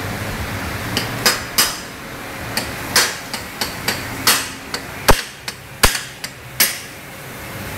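Hammer blows in a motorcycle workshop: an irregular series of about fifteen sharp knocks, the two loudest a little after five and six seconds in.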